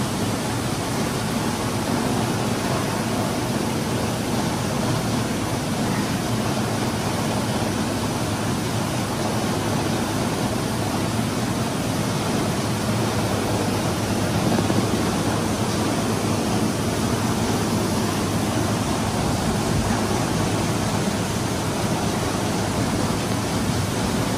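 Grain-store machinery running with a steady, even noise that does not change.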